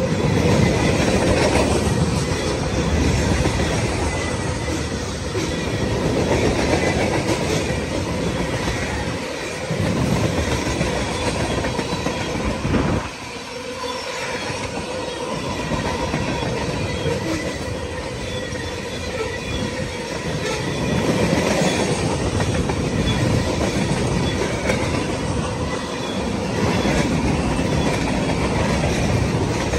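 Freight train cars (tank cars and boxcars) rolling past close by: steady rumble and clatter of steel wheels over the rail joints, with a thin steady ringing from the wheels on the rail. The noise briefly drops about thirteen seconds in, then picks up again.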